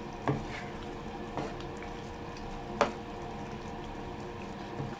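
Thick beef curry bubbling and sizzling in a pan while a spatula stirs it, with a few knocks of the spatula against the pan, the loudest about three seconds in.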